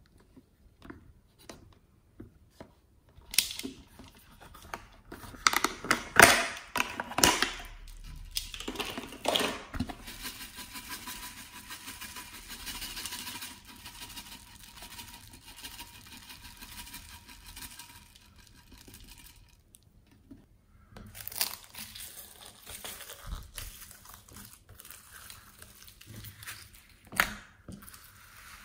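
Foam beads (floam) tumbling out of a plastic container into a glass bowl of slime: a run of sharp crackles and clicks, then a long steady rustling hiss as the beads pour. About two-thirds of the way through, hands begin squishing the beads into the slime, which makes a crunchy, crackling squelch.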